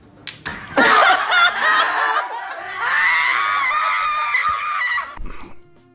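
A young man's high-pitched laughter, wavering up and down for about four seconds with a short break in the middle.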